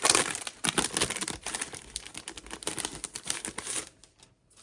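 Sticker sheets being handled and shuffled: a dense run of crinkling and rustling that stops about four seconds in.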